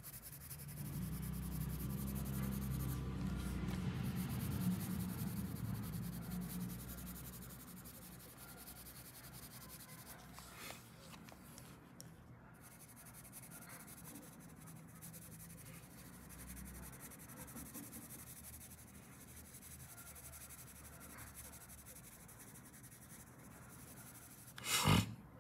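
Pink colored pencil scratching and rubbing on paper as an area is shaded in, louder for the first several seconds and fainter after. A single sharp knock near the end.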